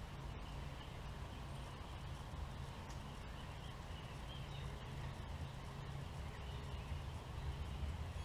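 A flock of American robins calling faintly, with scattered short high calls over a steady low rumble.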